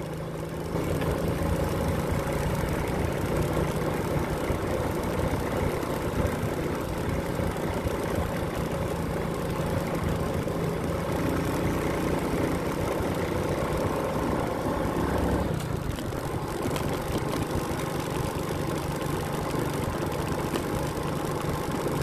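Motorcycle engine running steadily on the move, with its note dropping and changing about two-thirds of the way through, over road and wind noise.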